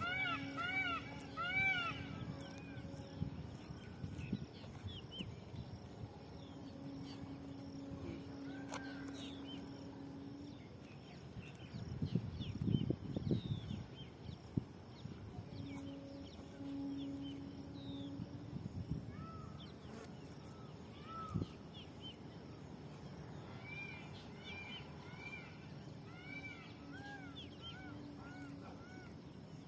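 Birds chirping in series of short, repeated arched calls, thickest at the start and again near the end, with a low hum coming and going and a louder low rumble of noise about twelve seconds in.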